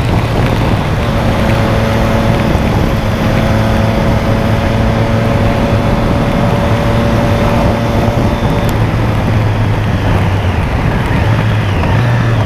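Motorcycle engine running at a steady cruising speed on a wet highway, its even drone half buried under loud wind rush and the hiss of road spray.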